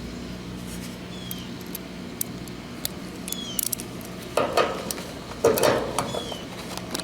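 Small metallic clicks and clinks of hand tools being worked on a heat pump's refrigerant service valves, with two louder scraping clatters a little past the middle, over a steady low hum.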